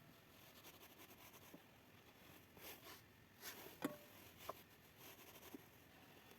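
Near silence, with faint scraping and a few light clicks; the sharpest click comes almost four seconds in.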